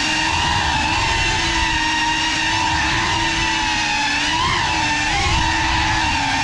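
Small FPV drone's electric motors and propellers giving a steady whine while it flies low. The pitch wavers briefly with throttle changes about four and a half and five seconds in.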